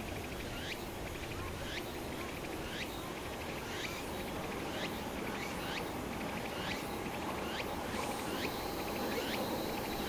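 An insect chirping a short rising call over and over, about one call every three-quarters of a second, over a steady outdoor rumble. A faint steady drone with a high hiss comes in about eight seconds in, fitting a jet airliner's engines on approach.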